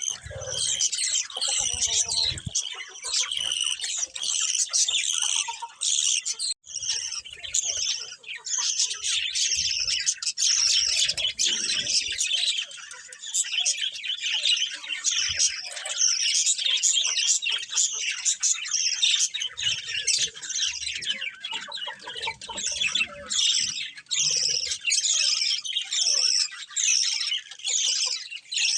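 Several budgerigars chirping and chattering without a break, many quick high calls overlapping one another.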